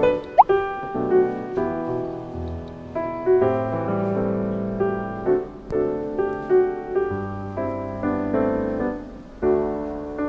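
Gentle background piano music, one sustained note or chord after another. About half a second in, a short rising tone sweeps quickly upward.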